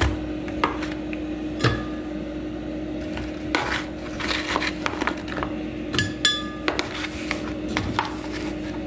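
A metal spoon scraping through frozen banana chunks in a plastic tub, with scattered clinks and knocks as the pieces are dropped into a glass blender jar. A steady hum runs underneath.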